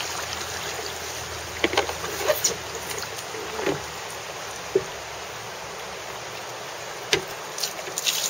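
Steady rush of river water around an open canoe, with paddle strokes splashing and a handful of sharp knocks of the paddle against the canoe.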